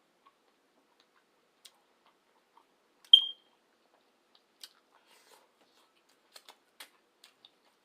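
Faint chewing and wet mouth clicks from someone eating, with a single short high-pitched beep about three seconds in, the loudest sound.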